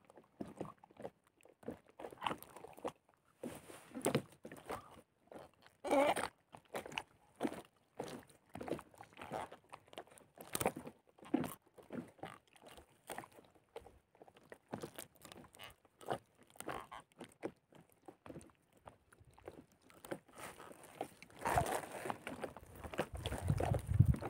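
Nylon gill net crackling and rustling as a fish is worked free of the mesh by hand, in many short irregular bursts. A low rumble comes in near the end.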